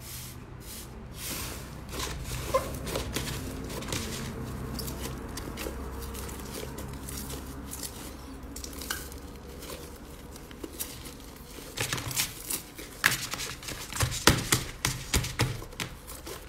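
Speckled green slime being pressed, squeezed and kneaded by hand in a clear plastic bowl: a steady run of small crackles and sticky pops, growing denser and louder in the last few seconds.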